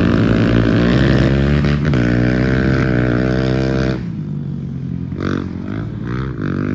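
Dirt bike engine running hard on a motocross track, loud with its pitch wavering as the throttle works. About four seconds in it drops away suddenly, and fainter revs rise and fall after.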